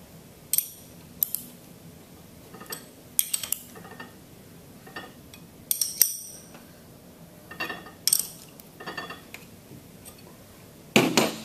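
Metal clinks and clicks of a 9/16 box-end wrench on the stainless steel flange bolts of a pump motor housing as they are tightened down, coming irregularly every second or two. A heavier metallic clunk near the end.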